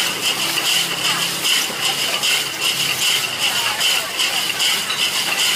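Slushie machine spinning glass soda bottles through a tub of ice: a steady churning rattle of ice and glass that pulses about four times a second.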